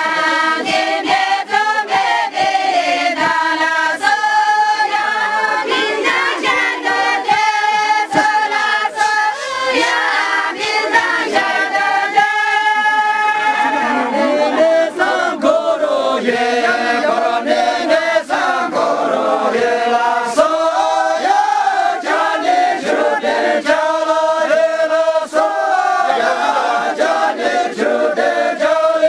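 A group of men and women singing a Tamang syabru dance song together in long, held phrases.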